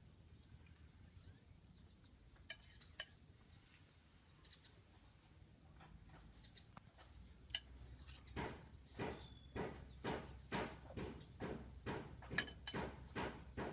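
Food-preparation knocking: two sharp clinks about half a second apart, then from about eight seconds in a steady run of knocks at roughly two a second.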